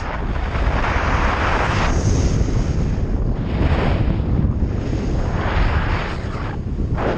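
Strong wind, about 10 m/s, buffeting the microphone: a loud, rumbling rush that swells and eases every second or two.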